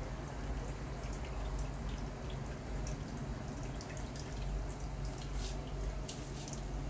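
A Turkish Angora cat lapping water from the top of a plastic water jug: soft, irregular wet clicks over a steady low hum.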